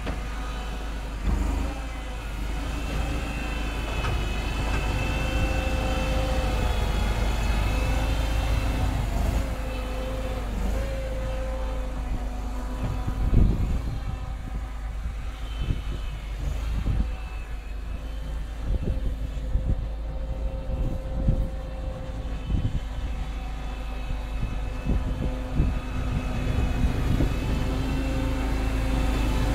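Homemade wheel loader's engine running under load as the loader pushes snow with its bucket, its steady drone dipping and rising a little. Scattered knocks and thumps come from the middle on.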